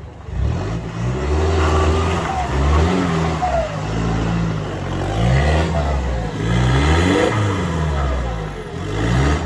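A 4x4's engine revving up and down over and over, its pitch rising and falling several times.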